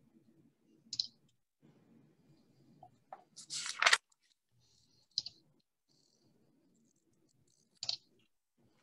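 Scattered sharp clicks and one louder, half-second rustling burst about three and a half seconds in, picked up by a participant's open microphone on a video call, over a faint low background murmur.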